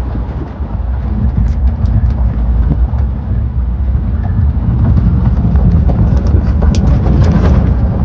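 A truck driving over a rough dirt ranch track: a heavy low rumble that grows louder over the first few seconds, with scattered knocks and rattles.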